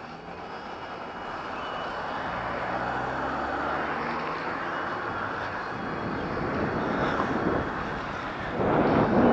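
Wind and road noise picked up by a camera on a moving bicycle: a rushing hiss with tyre rumble, steadily growing louder and rising again near the end.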